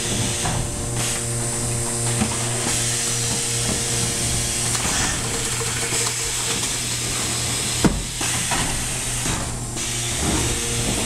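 Automatic case erector running on test: a steady machine hum under a continuous hiss that cuts out briefly a few times, with light clacks of the mechanism and one sharp knock about eight seconds in.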